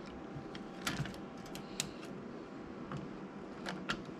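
Scattered light clicks and taps of small metal parts being handled while a pinball drop-target assembly is put back together, coming singly and in quick pairs with pauses between.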